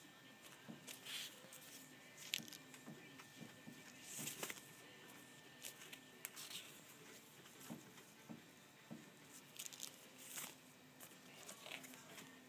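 Faint rustling of sheer drapery fabric swatches as they are handled and turned over, in several short swishes.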